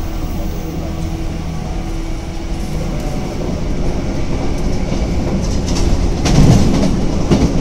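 Running noise of a JR 185-series electric express train heard from inside the carriage at speed: a steady rumble, with the wheels clattering over rail joints in quick groups from about six seconds in.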